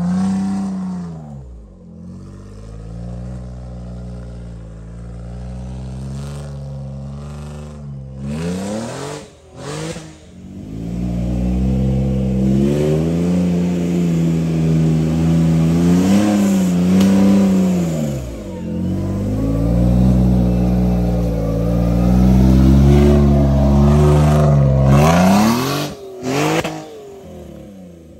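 Engine of an off-road 4x4 revving hard over and over, its pitch climbing and falling, with a few sharp knocks. It is quieter and lower for several seconds early on, then louder with repeated high revs through the middle.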